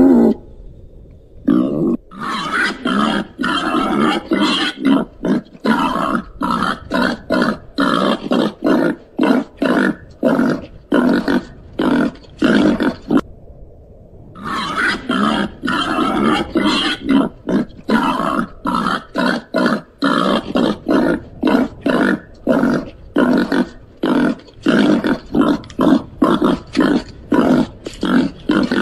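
Babirusa grunting in a quick, even series of short grunts, several a second, broken by a pause of about a second and a half halfway through.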